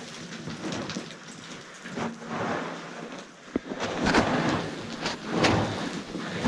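Irregular crunching and scuffing of footsteps and movement over loose rubble and grit, with a sharp click about three and a half seconds in.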